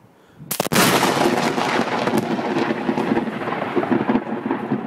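Close lightning strike: a sudden sharp thunderclap about half a second in, then loud rolling thunder rumbling on without a break.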